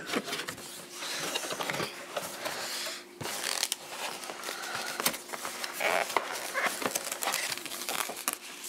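A cardboard camera box being opened by hand, then the camera body lifted out of its soft plastic wrap: continuous rustling and crinkling of cardboard and plastic, broken by sharp clicks and a snap near the start.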